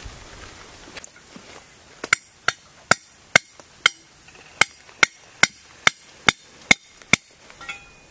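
About a dozen hammer blows on a metal chisel, roughly two to three a second, each with a short metallic ring, as the chisel is driven into the ground at the base of a bamboo clump.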